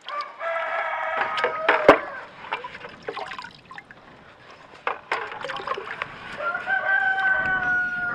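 A rooster crows twice, once near the start and again near the end. Under the crows come sharp knocks and the drip and splash of a cast iron skillet being handled in a bucket of lye solution.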